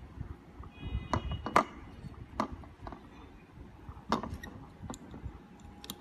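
Chrome-plated metal cabinet panel door lock being worked by hand, giving a handful of sharp metallic clicks and clacks as its latch moves. The loudest comes about a second and a half in.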